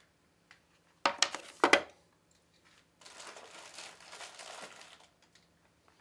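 Camcorder accessories being unpacked and set down on a table: two sharp plastic knocks about a second in as the battery charger and its cord are put down, then a few seconds of soft plastic-bag crinkling.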